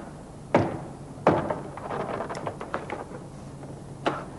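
Rear side trim panel of a VW Golf Mk1 Cabriolet being levered off with a flat pry tool: sharp knocks as the panel's fasteners pop loose, about half a second in, again at just over a second, and near the end, with light clicking and rattling in between.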